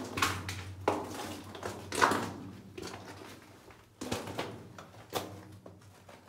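Footsteps on rock and gravel in a narrow mine tunnel: about five uneven steps, each with a short scrape, the confined passage giving them a close, boxy sound.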